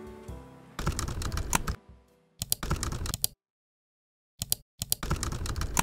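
Computer keyboard typing sound effect: rapid keystroke clicks in several short bursts with a second-long silent gap in the middle, added to go with title text typing itself onto the screen. Background music fades out at the very start.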